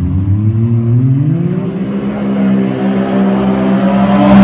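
Can-Am Maverick X3's turbocharged three-cylinder engine, fitted with a big turbo, under full-throttle acceleration. The revs climb for about two seconds and then hold steady while the side-by-side speeds up. The sound grows louder as it closes in and passes close by at the end.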